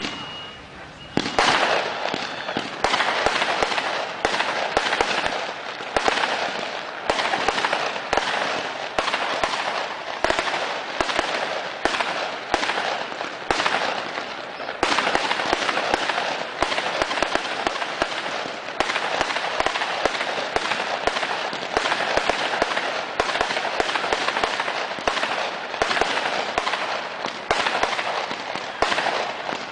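Fireworks display: a fast, unbroken run of bangs and crackling, starting about a second in.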